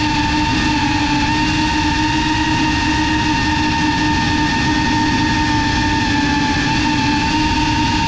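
FPV quadcopter's motors and propellers whining at a nearly steady pitch, over a steady rushing noise, as it flies low and fast.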